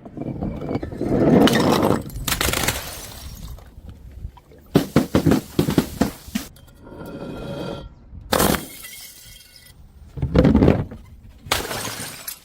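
Glass bottles smashing, several breaks one after another with bursts of shattering glass and clinking shards ringing between them.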